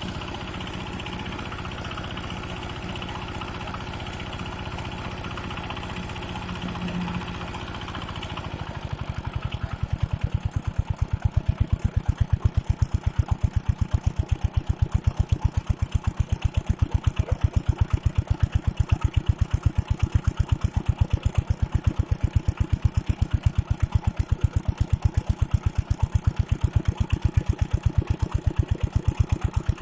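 Large old water-pump engine: a steady hum for the first eight seconds, then a slow, regular chugging sets in and settles into an even beat of about five a second as the engine runs on its own.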